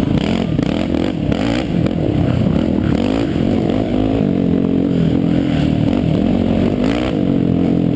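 Yamaha YFZ450X sport quad's single-cylinder four-stroke engine under hard riding, its pitch rising and falling over and over as the throttle is worked on and off.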